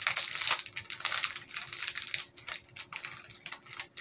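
Crinkling and rustling of a Pocky box's plastic inner pouch as it is handled to get a biscuit stick out. The crinkling is busiest for the first two seconds or so, then thins to scattered crackles.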